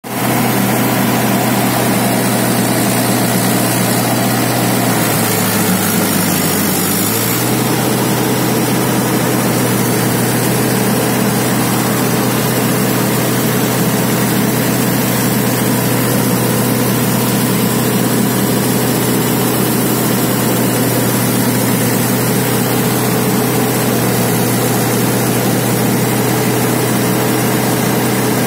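Mahindra 585 tractor's diesel engine running steadily at working speed, driving a Pammi thresher, mixed with the threshing machine's continuous noise. The engine note dips briefly about five seconds in, then recovers.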